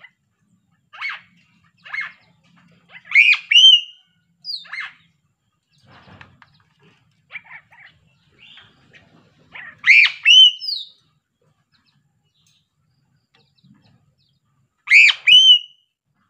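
Sulawesi piping crow calling in short, high notes that sweep up and down. Single calls come about one and two seconds in, and louder double calls follow around three seconds, ten seconds and fifteen seconds in, with softer notes in between.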